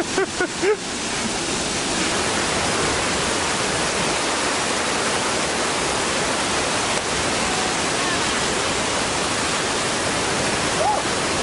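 Steady, loud rushing of falling water, a close waterfall on Havasu Creek, with a few brief dips in the first second.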